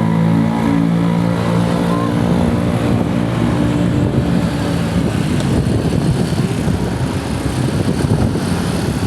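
Motor vehicle engine running with a steady hum for about five seconds, then giving way to a rougher, noisier traffic rumble.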